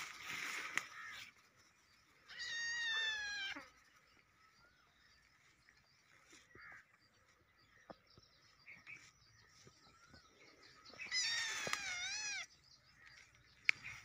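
Kitten meowing: two long, high meows, the first nearly level and dropping slightly at the end, the second about nine seconds later wavering up and down in pitch.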